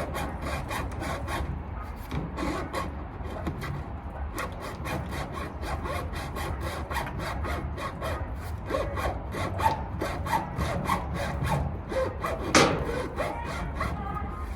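Hacksaw cutting through 3-inch plastic drain pipe by hand, in quick, steady back-and-forth strokes with a short pause about three seconds in. The going is slow.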